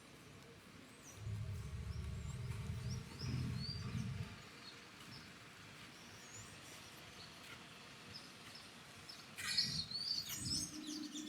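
Small birds chirping in short, high notes, under a low rumble from about one to four seconds in. Near the end comes a louder flurry of chirps, and a pigeon starts cooing.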